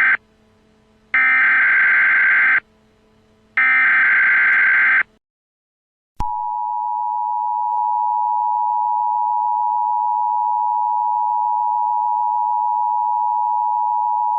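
Emergency Alert System SAME header: the screechy digital data bursts of the alert code, the tail of one followed by two more about a second apart. After about a second of silence, the EAS two-tone attention signal sounds steadily for about eight seconds, announcing a new alert.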